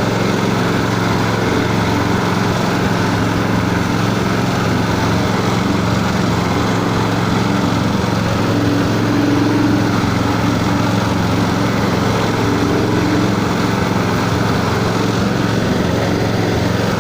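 Motor-driven feed pellet machine running steadily at constant speed, a continuous mechanical hum.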